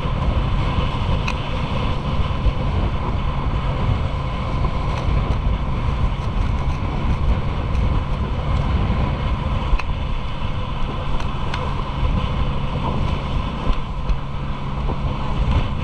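Wind buffeting the microphone and rushing spray from a banana boat towed fast over a churning wake, with the steady drone of the towing motorboat's engine underneath.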